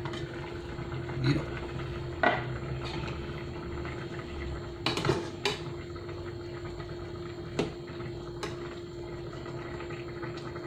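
A metal spoon clinks and scrapes against the sides of an aluminium pot as a simmering fish stew is stirred, after the pot's lid is lifted off near the start. The knocks come singly every second or two, with a short cluster about halfway through, over a steady hum.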